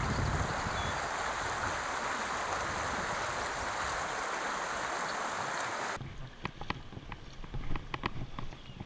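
Shallow creek water rushing steadily over a riffle. About six seconds in, the sound drops abruptly to quieter flowing water with scattered small clicks and splashes.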